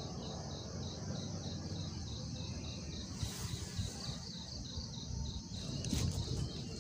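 Insects chirping in a steady pulsing rhythm, about four pulses a second, over a low rumble.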